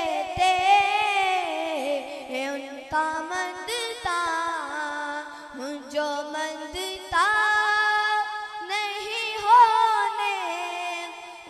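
A boy singing an Urdu naat unaccompanied into a microphone, with long held notes that bend and turn in ornaments.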